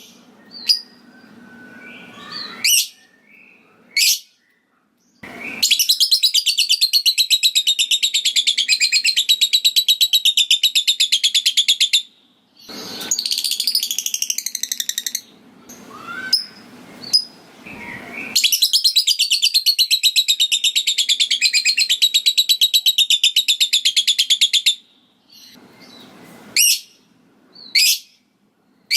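Lovebird calling: short sharp chirps, then two long, very fast rattling chatters of about six seconds each, the drawn-out trill that keepers call 'ngekek', with more chirps between and after.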